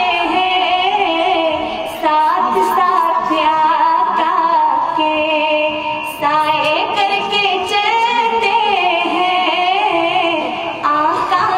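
A woman singing a naat, an Urdu devotional poem, into a microphone, in long held phrases with wavering pitch and brief breaks between lines.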